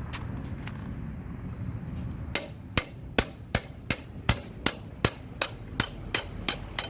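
A hammer striking metal in a steady run of about three blows a second, starting a couple of seconds in, to work loose a seized part of a Royal Enfield's rear wheel.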